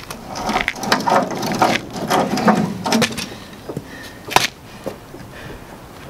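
A socket wrench works a rusted lug nut on the Bobcat skid-steer's wheel: a run of rapid metallic clicks and scrapes for about three seconds, then one sharp metal clank a little after four seconds in. The nuts are rusted on the wheel studs.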